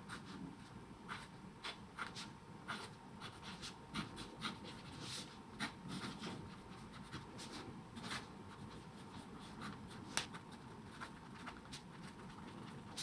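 TWSBI Eco fountain pen with a 1.1 mm steel stub nib writing on notebook paper: soft, irregular scratches and ticks as the nib forms letters and lifts between strokes.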